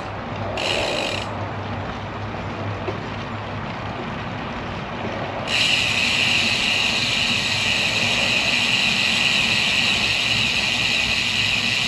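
Road bike's rear freehub buzzing as the rider coasts: a short burst about half a second in, then a steady buzz from about halfway on, over tyre and wind noise on the road.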